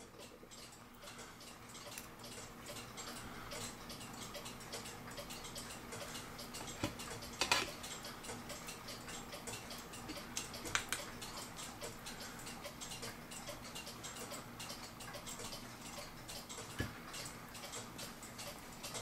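A mechanical clock ticking steadily, with a couple of sharper clicks from brass clock parts being handled in the middle.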